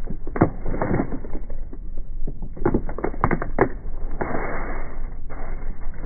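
Plastic crisp packet crinkling and crackling in a run of sharp crackles, with a longer rustle about four seconds in.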